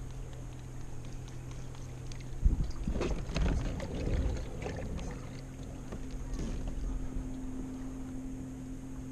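Handling noise aboard a plastic fishing kayak during a cast: a sharp knock about two and a half seconds in, then a couple of seconds of clatter and rustle, over a steady low hum.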